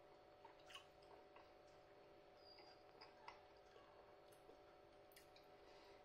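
Near silence: faint, scattered small clicks of a man chewing a mouthful of chilli con carne with rice, over a faint steady hum.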